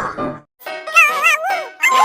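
Recorded animal call sound effect over a children's song backing: a high, wavering, quavering cry, then a falling cry near the end.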